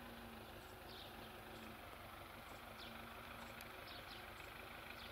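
Quiet rural outdoor ambience: a faint steady low hum, with a few faint, brief high chirps from small birds scattered through.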